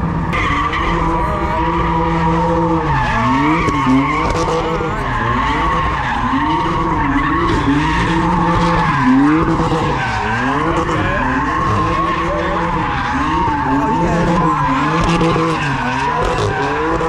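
Car tyres screeching continuously as a car spins them at speed, its engine revving hard, the pitch dipping and climbing back over and over.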